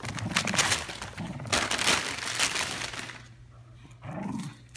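Wrapping paper crinkling and tearing as a wire fox terrier rips it off a present, busy for about three seconds and then dying down.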